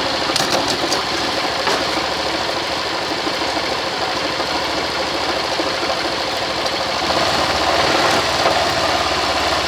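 Motorcycle engine running in first gear against the held rear brake with throttle applied, loading the drive chain, with a few sharp clicks in the first two seconds and the engine rising a little about seven seconds in. The periodic knock from the chain drive is no longer there now that the worn chain's master link has been replaced.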